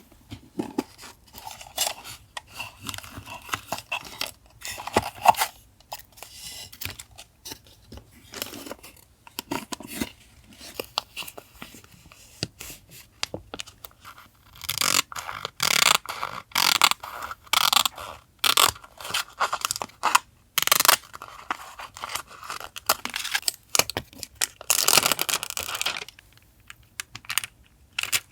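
Close-up paper collage handling: paper scraping, tearing and crinkling, broken by sharp little taps and clicks. There are longer, denser stretches of rustling about halfway through and again near the end.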